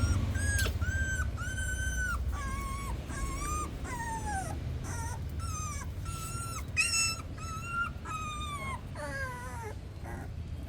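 Newborn puppies whimpering: a run of short, high-pitched cries, many falling in pitch at the end.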